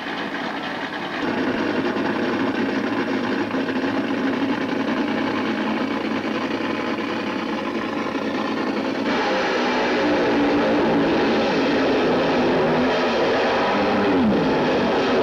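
Loud, steady din of a crowded indoor car-show hall. It shifts abruptly about a second in and again around nine seconds in.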